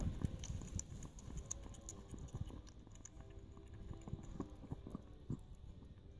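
Chihuahua mother licking her newborn puppy: a quiet run of irregular wet smacking and clicking from her tongue and mouth.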